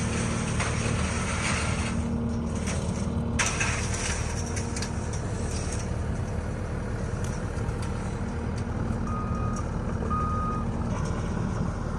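Diesel engine of a New Holland compact track loader running steadily as it carries a load of steel fence panels, with two short back-up alarm beeps near the end.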